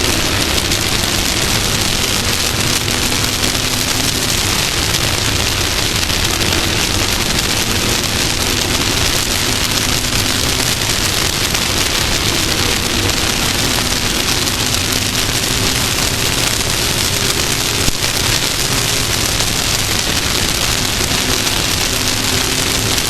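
Off-road race vehicle running at speed, its engine note shifting up and down in pitch under a loud, steady rush of wind and tyre noise.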